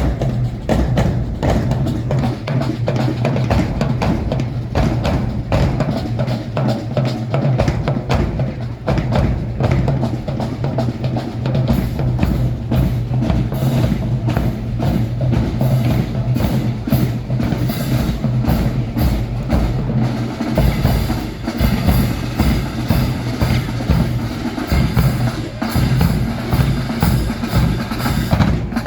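Marching band playing, led by its drums: snare and bass drums beating a steady rhythm under the band.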